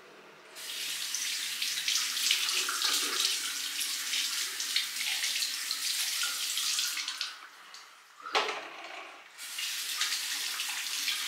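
Bathroom sink mixer tap running, water splashing over a baby monkey's hands and feet as they are washed. The tap comes on about half a second in, falls away for about two seconds around the seven-second mark apart from one short splash, then runs again.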